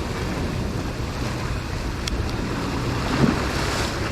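Wind buffeting the microphone over steady ocean surf, a continuous rushing noise with low rumble.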